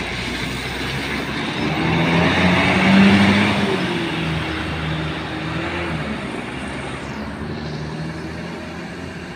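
Diesel engine of a Hino coach pulling away, its pitch rising as it accelerates. It grows louder to a peak about three seconds in, then fades as the bus moves off.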